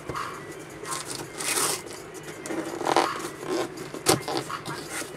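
A cardboard shipping box being opened by hand: cardboard flaps and paper scraping and rustling in irregular bursts, with one sharp snap about four seconds in.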